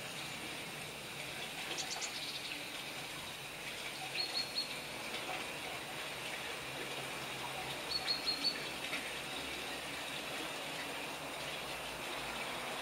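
A flock of European starlings chattering as one steady wash of sound, with a few sharper high call notes rising out of it, in quick runs of three or four, about four and eight seconds in.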